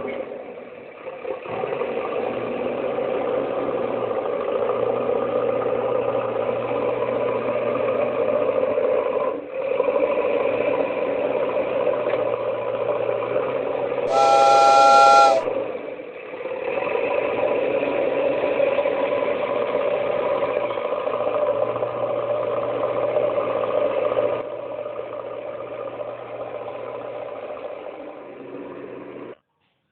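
Cartoon steam-train sound effect: a train running steadily, with one whistle blast of several tones at once, about a second long, halfway through. The running sound cuts off just before the end.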